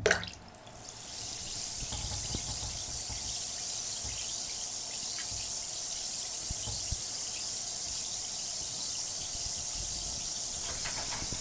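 Homemade bath bomb fizzing as it dissolves in water: a steady, high hiss with faint crackling bubbles, starting about a second in.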